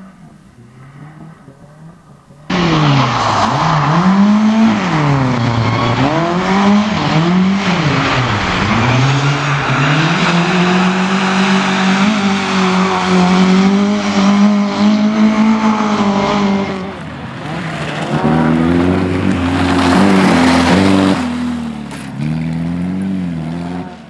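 Rally car engines at full throttle, among them a Lada saloon, with tyre squeal. The revs swing sharply up and down, then hold high for several seconds as the car slides through a corner. The sound jumps abruptly at about 2.5, 17 and 22 seconds in as different cars' runs are cut together.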